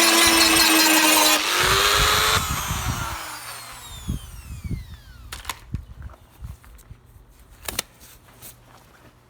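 Dremel rotary tool running at high speed on the cracked bumper, a high whine that shifts pitch, then is switched off about two seconds in and winds down in a falling whine. After that, a few light knocks and clicks of handling.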